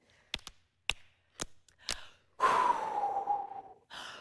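Four sharp clicks about half a second apart, then a woman blowing a long breathy 'whooo' that slides down in pitch, a mouth imitation of the wind.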